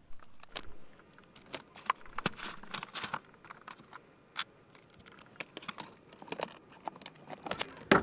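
Plastic trim clicks, taps and rattles as the cover under a 2014 Mercedes C300's dashboard is worked loose, with one sharper snap near the end.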